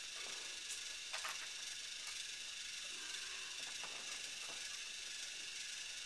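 Battery-powered toy train's small electric motor whirring steadily, with a few faint clicks.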